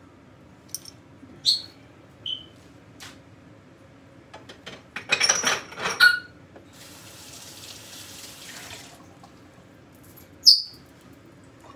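Clicks and clatter of the plastic meat-grinder parts being handled, then a tap running for about two seconds. A few short high-pitched chirps sound on and off.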